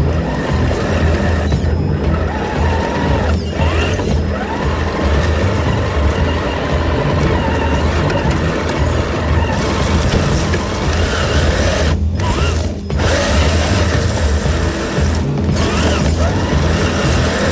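Traxxas TRX-4 RC rock crawler's motor and gear drive whining as it crawls over brush and leaf litter, the whine rising and falling a few times with the throttle, under background music.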